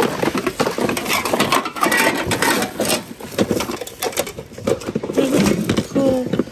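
Hands rummaging through a bin of mixed secondhand goods: plastic packaging crinkling and small objects knocking and clattering together in quick irregular bursts.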